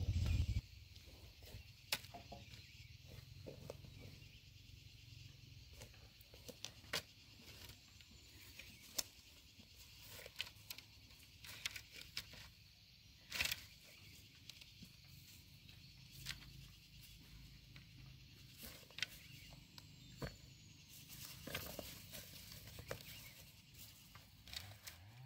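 A motorcycle engine running and cutting off about half a second in. Then scattered light knocks and clicks of freshly cut green wooden stakes being laid on a pile, with rustling steps in dry brush, over a faint high hiss.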